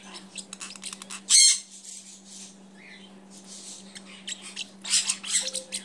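Several parrotlets chirping rapidly with sharp calls, with a loud harsh squawk about a second and a half in and a burst of loud calls near the end.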